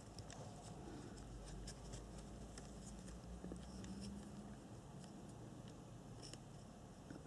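Faint scattered ticks and rustles of fingers handling an RC car's ESC wiring, the plastic-sheathed receiver lead and power wires, over a low steady hum.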